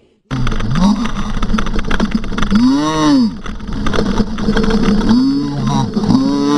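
Loud steady rushing of wind and trail noise on a mountain-bike camera's microphone, starting suddenly just after the start. Over it, a pitched sound rises and falls four times.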